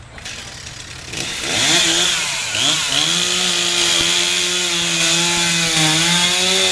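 Chainsaw starting up about a second in and revving up, then running steadily at high speed with slight dips in pitch as it cuts to level off the top of a log.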